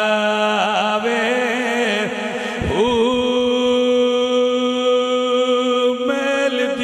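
A man's voice chanting a devotional verse in praise of Ali into a microphone, drawn out in long held notes with a slow waver. About two and a half seconds in the pitch swoops down and back up. It holds one long level note, then steps up near the end.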